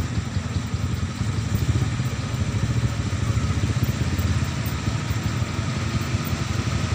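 Motorcycle engine idling close by, a steady low fast-pulsing run.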